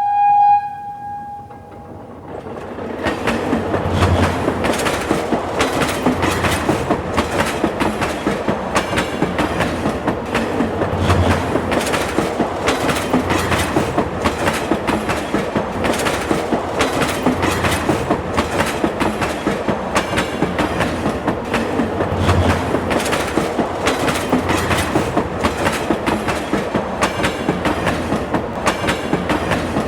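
A train sounds a short, high horn note, then rolls past with a steady clickety-clack of wheels over rail joints and heavier thuds every few seconds.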